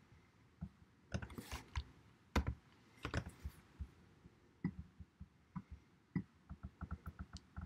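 Mouse clicks and computer keyboard keystrokes, scattered at first, then a quick, even run of typing near the end.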